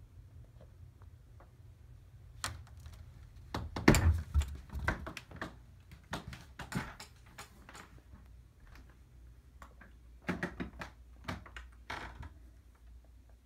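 A door opening, with a cluster of clicks and a thump about four seconds in. Scattered knocks and clicks follow as someone walks into the room, over a faint low hum.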